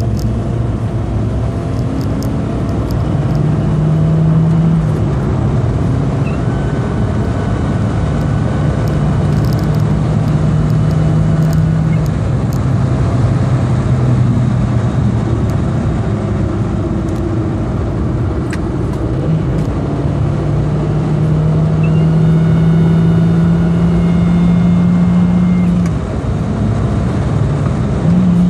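2002 Volkswagen New Beetle under way, its engine and road noise steady while the engine hum climbs through several rises as the car accelerates, with a faint thin whine on top. The small whine comes from a vacuum leak through several broken plastic emission-system parts.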